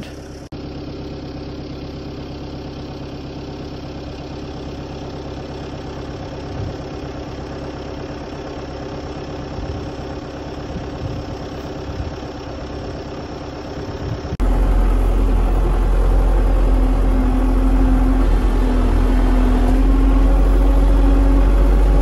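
Tractor engine running steadily with an even hum. About fourteen seconds in it becomes much louder, with a heavy low rumble, as heard from inside the tractor's cab.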